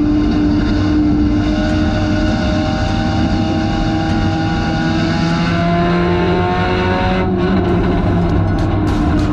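Front-wheel-drive race car's engine heard from inside the cabin at full throttle, its pitch climbing steadily along the straight. About seven seconds in it drops abruptly as the throttle comes off for the turn, then carries on at a lower pitch.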